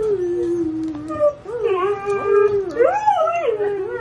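Borzoi howling in long, drawn-out calls. A first steady note sinks slightly in pitch, then several longer notes waver up and down.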